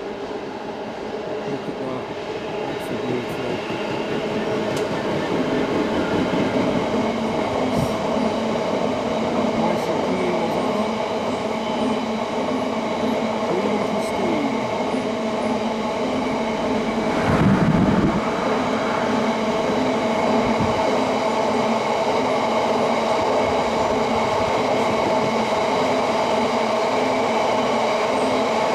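Freight train of biomass wagons passing at slow speed, its noise building over the first few seconds and then holding steady with a mix of steady mechanical tones. A louder burst comes a little over halfway through.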